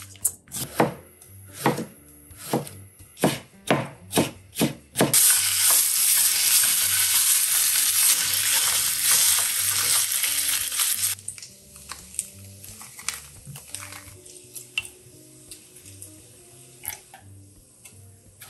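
Hands squishing and slapping sliced pork neck in a stainless steel bowl. About five seconds in it changes to loud sizzling as the pork fries in a pan, turned with a spatula; this stops after about six seconds. Quiet clinks of a spoon and seasoning containers follow.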